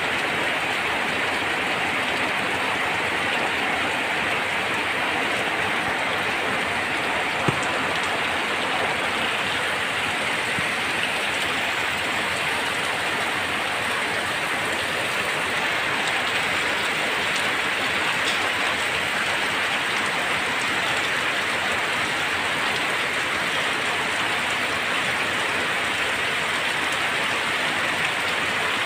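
Heavy rain falling steadily on a paved lane and foliage, an even hiss at a constant level. One sharp tick stands out about seven and a half seconds in.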